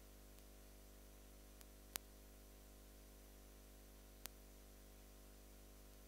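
Near silence: a faint steady electrical hum, with two brief faint clicks, one about two seconds in and one about four seconds in.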